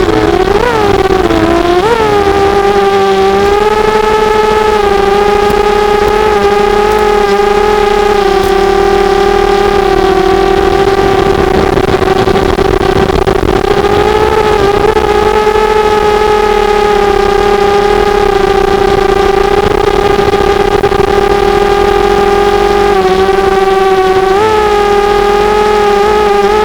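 Small quadcopter's four brushless motors whining steadily in flight, the pitch dipping and jumping with quick throttle changes in the first couple of seconds and again near the end.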